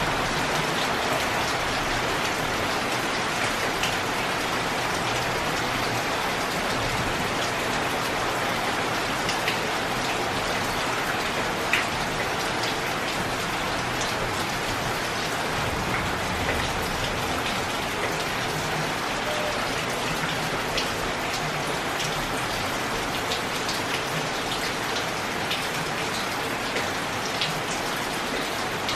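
Steady rain falling on roofs, with water running off a roof edge and scattered sharp drips and splashes.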